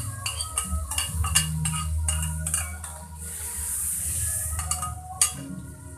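Blended chili paste sizzling in hot oil in a wok as it is squeezed in from a plastic bag, with many light clicks and taps against the pan. A steady hissing sizzle swells about halfway through, and there is one sharp knock near the end.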